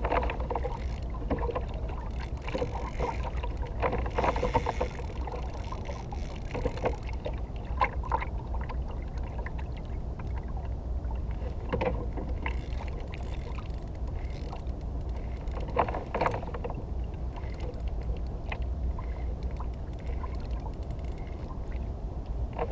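Steady low rumble of wind and water around a fishing kayak, with a few scattered short knocks and clicks, a cluster a few seconds in and others later on.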